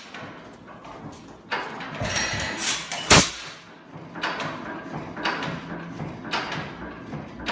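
1919 Galloway 12 hp portable gas engine being started. It clanks and gives a sharp bang about three seconds in, then runs with its flywheel spinning, firing in regular beats about twice a second.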